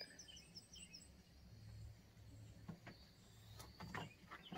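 Near silence with faint birds chirping in the background: a quick run of about six high chirps in the first second, then scattered chirps, over a faint low hum.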